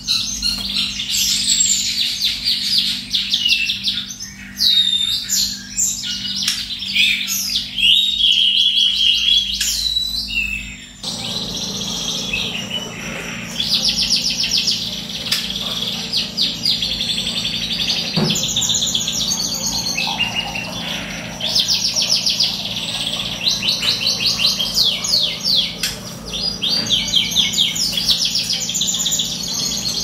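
Caged seed-eating songbird singing a long, continuous song of fast trills, rapid repeated notes and chirps, over a steady low hum. The song and background change abruptly about eleven seconds in.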